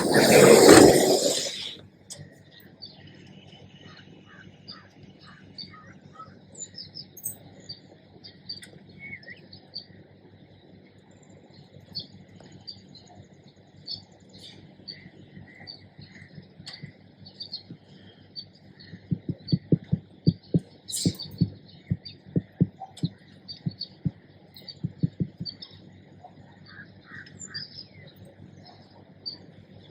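Birds chirping and calling in short repeated notes, over a steady low hum. A loud brief rush of noise opens it, and a run of soft low thumps comes about two-thirds of the way through.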